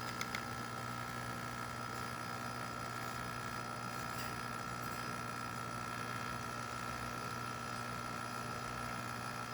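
Quick Mill QM67 espresso machine running its pump steadily through a shot extraction, a constant electric hum, with a couple of small clicks right at the start.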